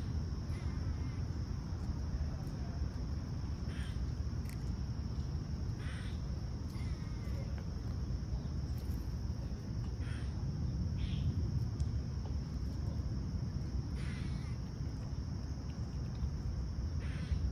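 Steady high-pitched drone of insects, like crickets, over a low background rumble, with short bird calls, typical of crows, every few seconds.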